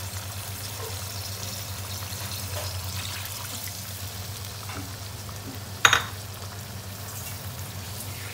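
Tamarind water poured from a bowl into a pan of fish in chilli paste that is frying and sizzling, over a steady low hum. A single sharp clink about six seconds in.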